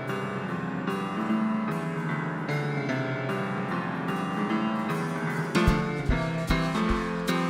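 Live band music led by an upright piano playing sustained chords. The drum kit comes in heavily near the end, with kick drum thumps and cymbal hits.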